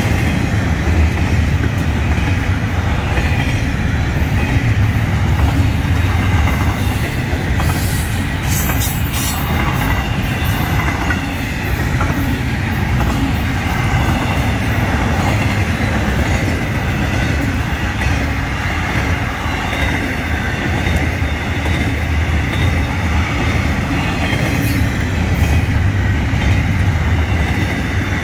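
Intermodal freight train cars rolling past at speed: a steady, loud rumble of steel wheels on rail, with a short run of sharp clicks and clanks about eight to nine seconds in.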